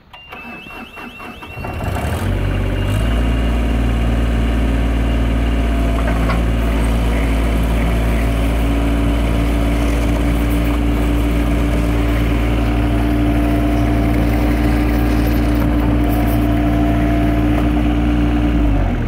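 Terex TC25 mini excavator's diesel engine comes up to speed about two seconds in and runs steadily at raised revs, then drops back near the end. The machine is being driven forward and back on its freshly tensioned rubber track so the track settles onto the drive sprocket.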